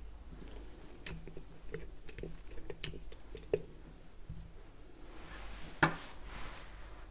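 Scattered light clicks and taps of small tools being handled on a workbench, with one sharper click a little before six seconds, inside a brief hiss.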